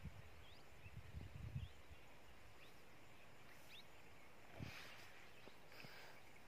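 Near silence of open countryside: faint, short bird chirps over the first few seconds, a few low thumps on the microphone in the first two seconds, and two brief rustles near the end.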